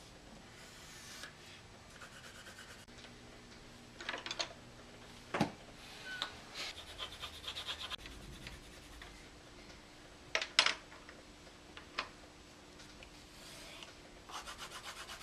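Marker tip rubbing quickly back and forth on paper while colouring in, in bursts of fast scratchy strokes. A few sharp knocks break in, the loudest about ten and a half seconds in.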